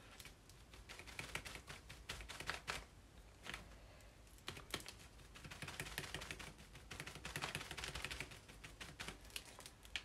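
Sponge dabbing acrylic paint through a plastic stencil onto paper: faint, irregular soft taps, coming in quick runs.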